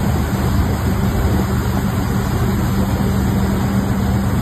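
Wake boat's engine running steadily under way, a level hum over the rush of churning water in the wake behind the stern.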